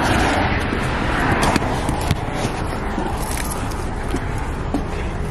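Handling noise from a camera carried against clothing: fabric rustling and scraping over the microphone, with a few small knocks, over a steady low rumble.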